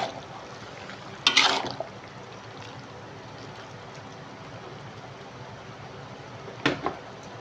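Chicken and cassava-leaf soup being stirred in a wok: liquid sloshing over a steady hiss, with two louder stirring bursts, one about a second in and a shorter one near the end.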